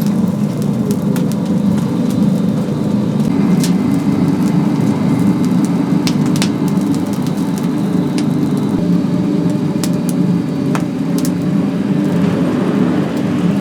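Oak wood fire burning in a chicken-roasting oven: a steady low roar with sharp crackles now and then.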